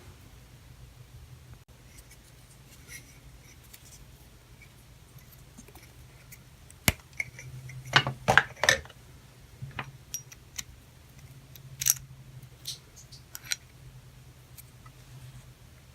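Scattered clicks and short scrapes of hands working on a bathtub faucet cartridge while old Teflon tape is stripped from its threads, the busiest stretch about seven to nine seconds in. A faint steady low hum runs underneath.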